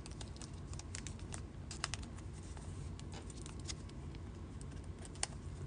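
Light scattered clicks and rustles of trading cards being handled in soft plastic sleeves and a rigid plastic holder, with a sharper click about two seconds in and another about five seconds in, over a faint low hum.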